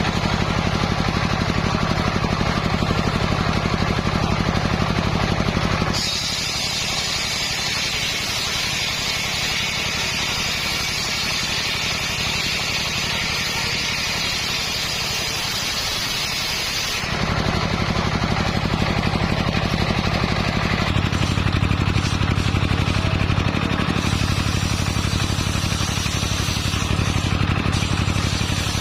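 Motor-driven circular saw running with a steady hum. About six seconds in, the blade bites into hard coconut-palm wood and a higher, noisy cutting sound takes over for about eleven seconds. The saw then runs free again.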